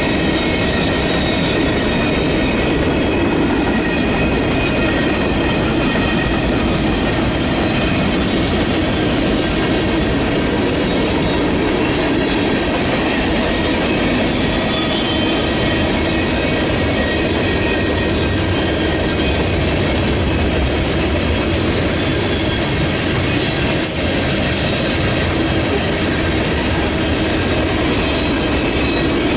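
Freight cars of a manifest train rolling steadily past, steel wheels rumbling and clacking on the rail, with a thin high wheel squeal over it.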